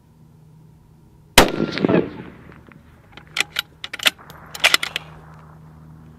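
A bolt-action precision rifle fires a single shot, the report rolling away over about a second. About two seconds later comes a quick run of short metallic clicks, the bolt being worked to eject the case and chamber the next round.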